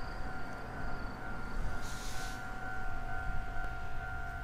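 Distant steam locomotive's whistle, one long steady blast held throughout, over a low rumble, with a short hiss about two seconds in.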